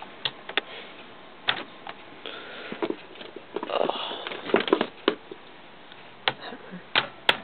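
Clicks and rustling as hands work an airsoft M4 rifle's receiver, then a few sharp taps near the end as a hammer drives the receiver takedown pin back into place.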